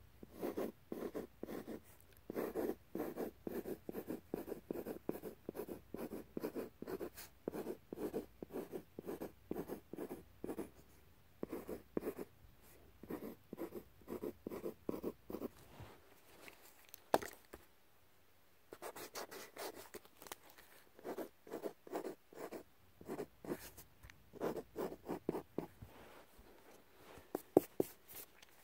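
Pencil scratching on paper in quick, short sketching strokes, about two or three a second. The strokes stop for a few seconds past the middle, with a single sharp tick, then start again.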